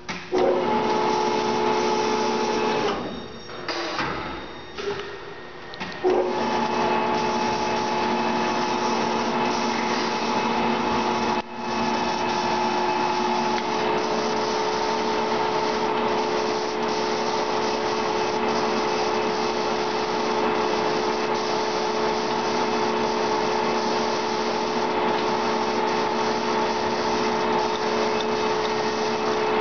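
Metosa 18″ x 60″ lathe with a gear-driven headstock running, a steady mechanical hum of several tones. It falls away between about 3 and 6 seconds, then runs again, and its tones change about 14 seconds in.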